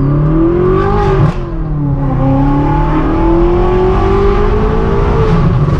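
BMW M6 Gran Coupe's twin-turbo V8, tuned and breathing through catless downpipes and a straight-piped exhaust, pulling hard under acceleration with a manual gearbox. The revs climb, drop sharply at an upshift about a second in, climb steadily again, then fall away near the end.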